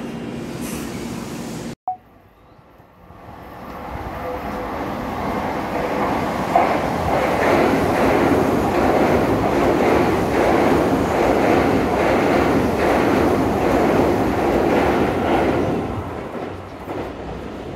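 Electric commuter train on the Tokyu Toyoko Line passing through the station. Its approach builds from a few seconds in into a loud, steady, rhythmic clatter of wheels over the rail joints, which fades near the end. A sudden cut comes just before the approach.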